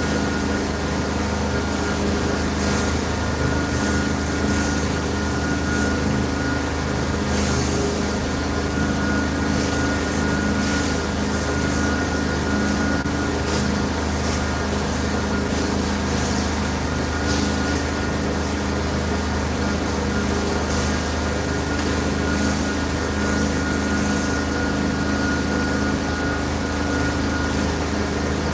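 Carpet-cleaning extraction machine running steadily while chairs are cleaned: a low engine-like hum under a constant thin high whine and a rush of vacuum suction.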